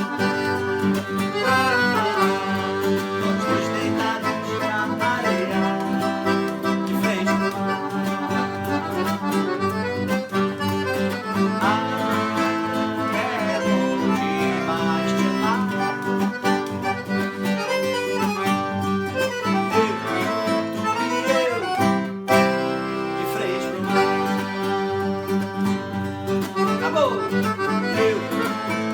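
Forró band playing an instrumental passage led by accordion, with guitar over a steady rhythm, breaking off for an instant about two-thirds of the way through.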